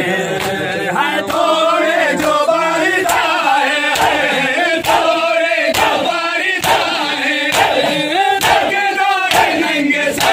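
Crowd of men chanting a Muharram mourning lament (nauha) together while beating their chests in matam. The hand slaps land in unison at a steady beat of about two a second.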